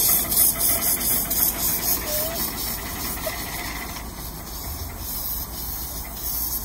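Miniature steam locomotive chuffing past at about four exhaust beats a second, the beats fading over the first second or two into a steady hiss as the train's cars roll by on the track.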